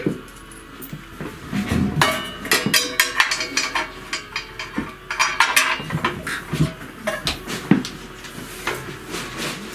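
Metal clanking and clattering as a walk-behind tractor's steel tubular handlebar is handled and fitted against its steel mount: repeated sharp knocks, some with a short metallic ring.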